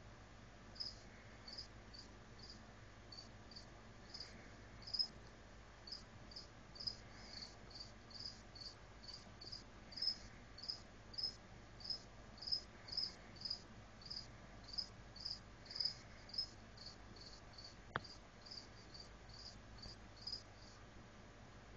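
Cricket chirping steadily, faint short high chirps about two a second. One sharp click sounds late on.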